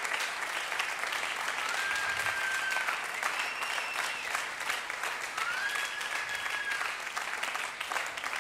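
Church congregation clapping steadily, with a few long high-pitched calls rising out of the crowd over the applause.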